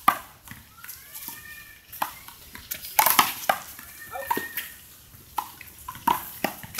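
Sharp, irregular smacks of a small rubber handball striking the concrete wall and court and being hit by hand, the loudest quick run of them about three seconds in, with a few short sneaker squeaks on the court surface.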